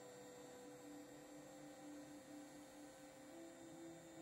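Near silence with faint ambient background music: soft sustained tones, the lower one shifting up in pitch about three seconds in.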